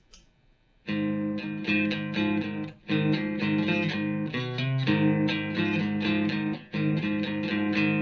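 Electric guitar played through a Marshall amp head and speaker cabinet: chords in a rhythmic riff that starts about a second in, with two short breaks, near the three-second mark and near the seven-second mark.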